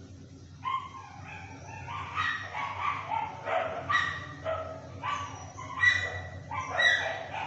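Repeated short, high-pitched animal cries and yips, a dozen or so in quick succession with rising and falling pitch, over a steady low hum.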